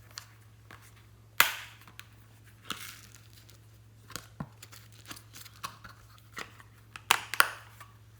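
Slime being worked by hand, giving irregular sharp pops and crackles with short hissy tails. The loudest pops come about a second and a half in and in a quick cluster near the end. A faint steady low hum runs underneath.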